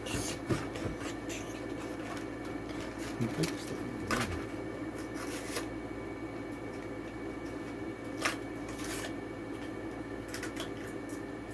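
A die-cast toy car being worked out of its plastic blister and cardboard card packaging by hand: rustling and crinkling, with a few sharp snaps and clicks, over a steady low hum.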